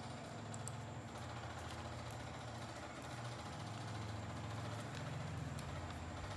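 A steady low mechanical hum runs throughout, with faint crinkles of newspaper being folded by hand.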